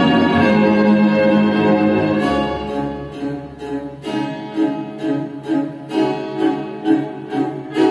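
Recorded string music, with bowed strings such as violin and cello, played back through loudspeakers in the room for a sound test. Held notes give way about four seconds in to a pulsing rhythm of short strokes, about two a second.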